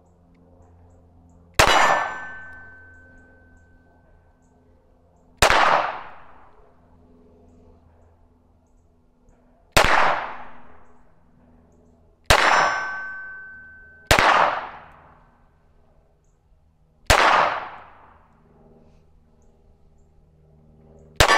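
Seven single shots from a 9mm SIG P320 Spectre Comp pistol, spaced unevenly two to four seconds apart, each followed by a metallic ring that fades over about a second. This is slow fire from a pistol that has been jamming.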